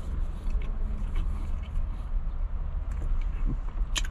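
A person chewing a big mouthful of burrito, with faint scattered mouth clicks and one sharper click near the end, over a steady low rumble.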